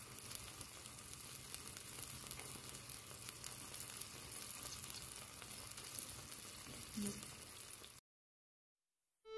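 Potato and vegetable curry simmering in a miniature steel pot over a tiny clay stove: a faint, steady sizzling and bubbling crackle that cuts off about eight seconds in.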